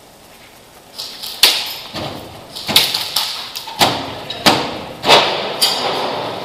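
A quiet second, then a run of about seven sharp thuds spaced roughly half a second to a second apart, each with a short crunching tail.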